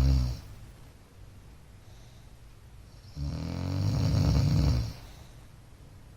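A man snoring in his sleep. The end of one snore fades out just after the start, and a second low snore begins about three seconds in and lasts about a second and a half.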